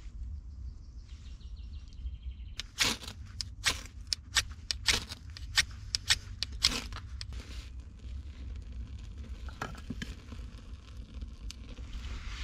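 A ferrocerium rod struck repeatedly into a curl of wood shavings to light them: about a dozen quick, sharp scrapes over some four seconds, then a few faint clicks.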